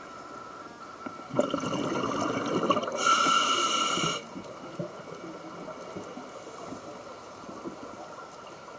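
A diver's scuba regulator heard underwater: a stretch of bubbling exhaust starting about a second and a half in, then a short, loud hiss of air through the regulator, followed by quieter water noise.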